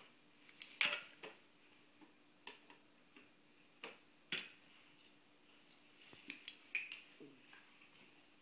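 Large plastic building blocks clicking and clattering together as they are handled and dropped, in scattered irregular knocks, the loudest about halfway through and a quick run of them near the end.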